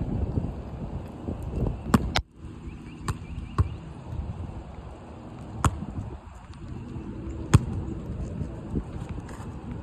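Wind buffeting the microphone, with a handful of sharp, irregularly spaced knocks from a basketball bouncing on asphalt and being caught; the loudest knock comes late.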